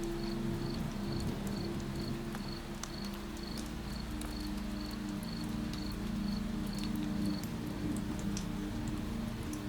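A cricket chirping steadily, about two chirps a second, stopping near the end, over light rain patter with scattered drops, in a night rain ambience.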